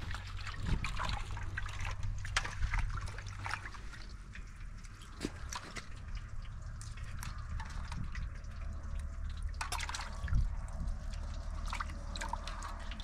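Water splashing and dripping in a metal pot as hands wash cucumbers and peppers in it, in short irregular splashes, with a dull thump about ten seconds in.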